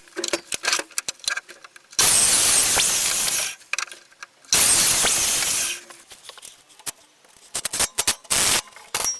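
A power saw cutting ash boards: two cuts of about a second and a half each, loud and even, with the motor's pitch gliding as it spins up. Sharp clicks and knocks of wood being handled come before, between and after.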